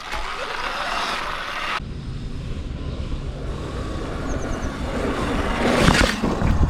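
Riding noise from a Sur-Ron electric dirt bike on a dirt trail: wind rushing over the microphone and tyres rolling on dirt, with no engine note. The sound changes abruptly about two seconds in to a deeper rumble and grows louder near the end.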